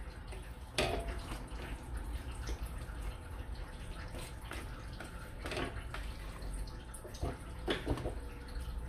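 A wire whisk beating soft mashed potatoes in a plastic bowl: faint wet squelching, with a few light taps and scrapes against the bowl.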